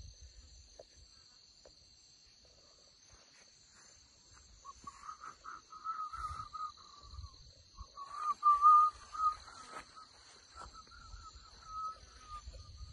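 Insects buzzing in a steady high-pitched drone. About a third of the way in a wavering whistle-like tone joins and carries on, loudest just past the middle, and low wind rumbles hit the microphone now and then.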